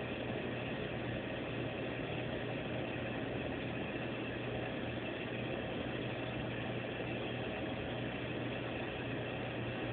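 Aquarium pump running: a steady low hum under an even hiss of moving water.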